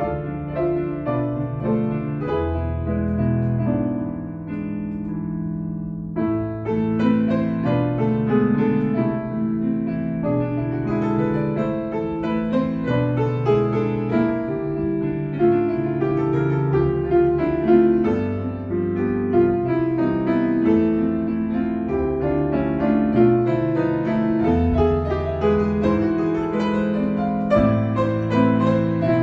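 Piano music, a melody over chords. It thins out and drops in level about four seconds in, then comes back fuller.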